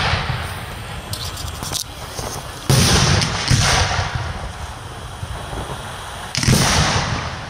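Aerial fireworks bursting overhead: a loud bang about three seconds in, a second close after it, and a third near the end, each dying away over about a second, with fainter pops about a second in.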